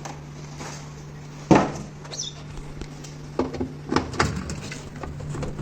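Washing machine accessory hoses and fittings being handled, with one sharp knock about a second and a half in and a few softer knocks later, over a steady low hum.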